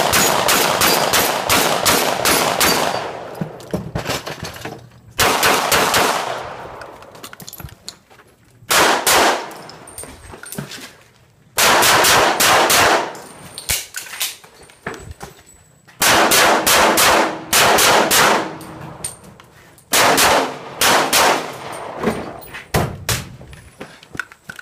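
Rapid strings of gunshots: about seven bursts of several quick shots each, separated by pauses of one to two seconds as targets are engaged in turn.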